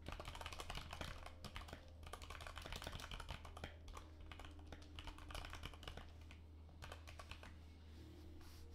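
Fast typing on a computer keyboard: a quick run of key clicks that thins out near the end, over a steady low hum.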